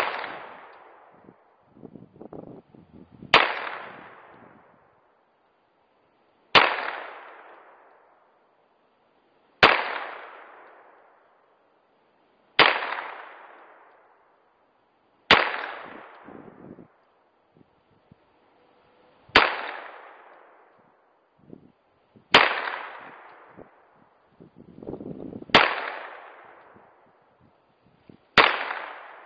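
Smith & Wesson 22A .22 LR pistol fired in slow, aimed single shots, about ten of them roughly every three seconds, each trailing off in a long echo through the woods.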